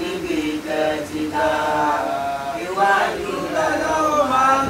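A man's voice chanting an Islamic prayer recitation, with long held notes that rise and fall in pitch.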